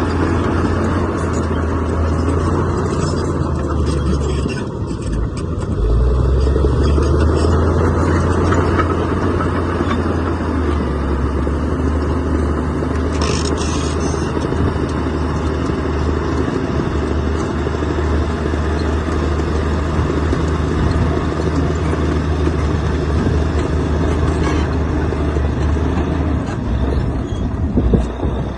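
Heavy diesel engine of earthmoving machinery running under work, a steady low drone whose note dips and then picks up again about five seconds in. A single sharp knock sounds near the end.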